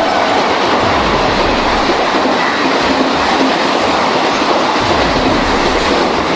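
Train sound effect: the steady rushing rattle of a train running along the track.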